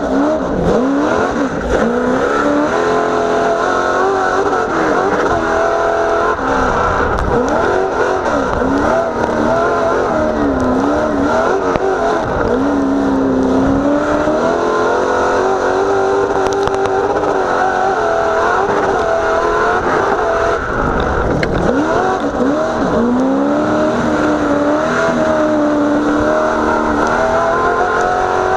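900-horsepower short-course off-road race truck's engine at full race pace, heard from inside the cab, its revs rising and falling over and over as the throttle is worked through the course.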